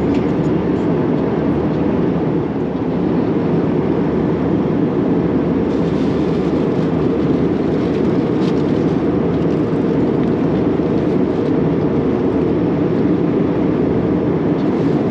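Steady cabin noise of an Airbus A320-232 in flight: the even, low rush of airflow and engines heard from inside the passenger cabin.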